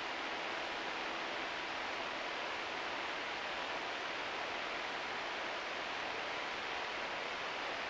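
Steady, even hiss from an analog radio receiver holding the open disaster-prevention radio channel, with no chime or announcement playing.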